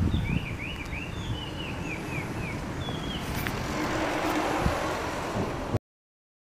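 Small birds chirping in quick short falling notes over wind rumbling on the microphone. A few seconds in, a rushing noise builds, then all sound cuts off suddenly.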